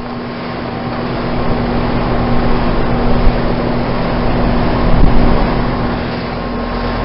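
Lennox Merit Series heat pump outdoor unit running in heating mode in sub-freezing cold: the fan blows air steadily over a constant compressor hum. It grows louder over the first couple of seconds.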